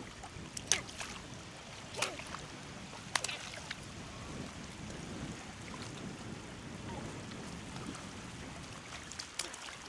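Steady wash of water, broken by a few short sharp splashes.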